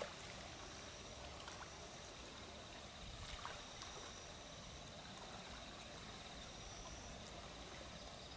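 Faint night-time outdoor ambience: a steady high-pitched trill over a soft even hiss, with a few faint clicks.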